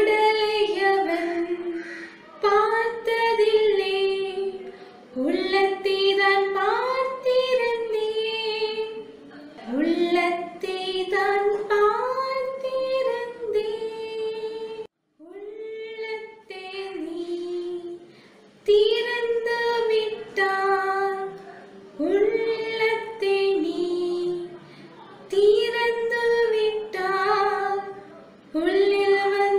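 A young woman singing a Tamil Christian children's song unaccompanied, in short sung lines with brief pauses between them; the sound cuts out for a moment about halfway through.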